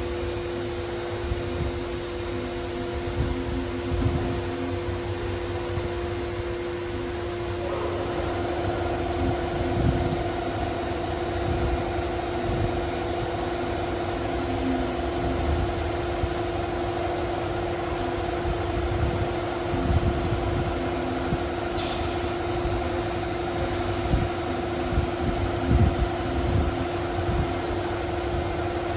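CNC router engraving aluminum: the spindle runs with a steady hum, and its sound grows fuller and louder about eight seconds in. A brief high chirp comes near the end.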